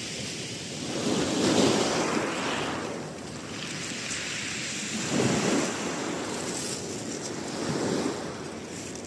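Sea waves washing onto the shore, surging three times, with wind buffeting the microphone.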